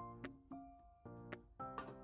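Light instrumental background music, with pitched notes struck about twice a second and fading away.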